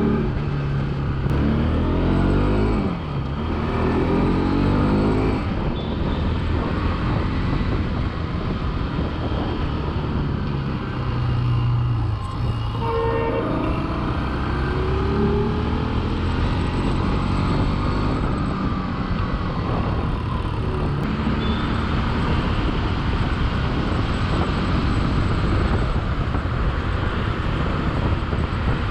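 Bajaj Pulsar 200NS single-cylinder motorcycle engine being ridden on the road, its pitch rising and falling with throttle and gear changes in the first few seconds, over steady wind and road noise. A brief horn toot sounds near the middle.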